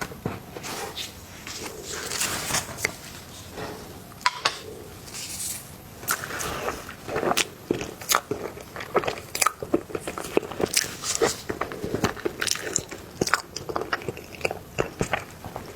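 Close-miked mukbang eating sounds: biting into and chewing soft cake, with many irregular sharp wet mouth clicks and smacks.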